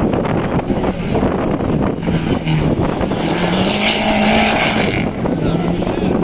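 Race car engine running under load, its pitch rising and falling as it revs up and comes off the throttle. A brighter, higher sound joins it for about two seconds midway.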